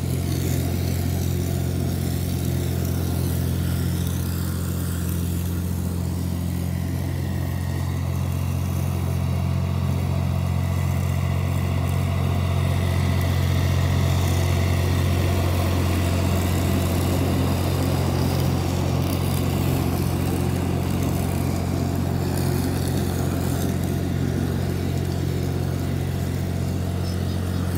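Small Yanmar compact diesel tractor engine running steadily as the tractor drives across the lawn, with a low, even hum and a slight swell in loudness around the middle.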